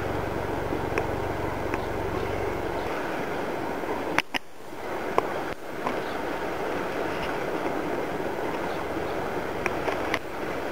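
Steady outdoor background noise with a low rumble that fades out about three seconds in, and a few faint ticks; the sound drops out briefly twice around the middle.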